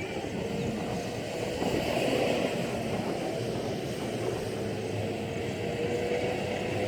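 Off-road vehicle engine running with a steady drone over rumbling noise, its pitch rising slightly in the last few seconds.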